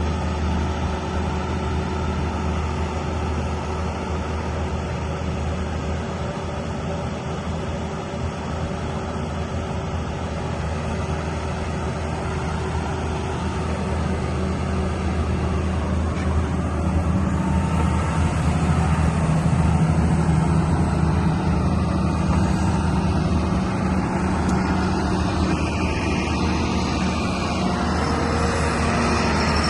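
Caterpillar 320D2L hydraulic excavator's diesel engine running steadily with a low hum, growing louder and shifting in pitch about halfway through.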